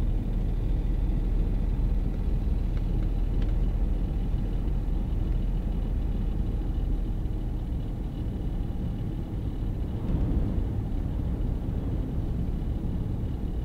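Low, steady rumble of a vehicle's engine idling, heard from the vehicle while it stands still.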